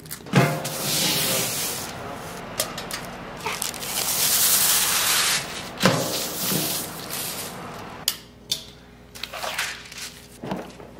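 Sheets of thin translucent paper rustling and crinkling as they are unrolled and smoothed flat by hand, with long hissing stretches about half a second and four seconds in, and a couple of sharp knocks.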